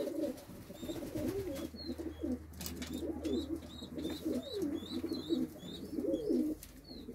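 Domestic pigeons cooing: several birds overlapping in a continuous run of low, rolling coos, with short faint high chirps scattered throughout.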